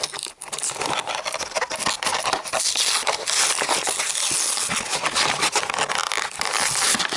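Cardboard box and plastic toy packaging being opened by hand: continuous crinkling and crackling with small tearing and scraping noises.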